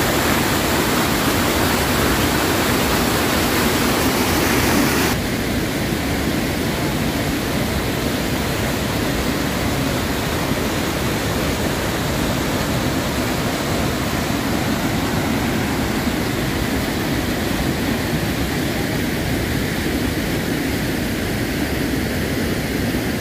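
Floodwater pouring over a dam spillway and churning down rocky rapids: a loud, steady rush of water. About five seconds in it suddenly loses some of its hiss and drops a little in level, then carries on evenly.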